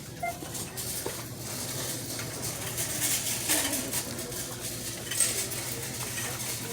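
Shop ambience: small plastic and packaged goods clicking and rattling as they are handled on the shelves, over a steady low hum.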